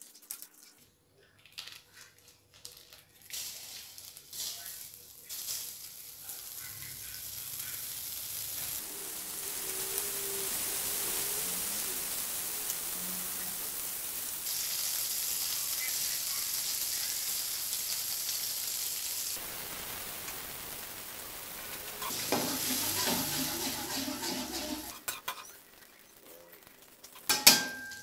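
Margarine sizzling as it melts in a hot metal wok over a gas flame: a steady hiss that builds over the first several seconds and then holds. Near the end come a few sharp knocks as a cutting board is tipped against the wok rim to slide chopped pieces in.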